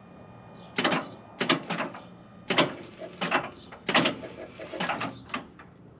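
Old Genie boom lift's hydraulic drive being worked: a run of about seven short, sharp mechanical clunks and hisses, spaced irregularly, over the faint steady whine of a small hydraulic pump.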